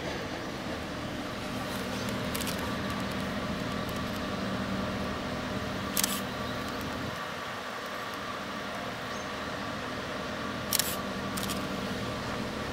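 KiHa 28/58 diesel railcars standing with their DMH17-series engines idling, a steady low hum; part of it drops away about seven seconds in. A few sharp clicks break in, the loudest about six and eleven seconds in.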